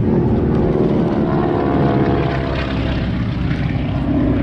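Propeller aircraft flying past, its engine drone falling slightly in pitch as it goes by.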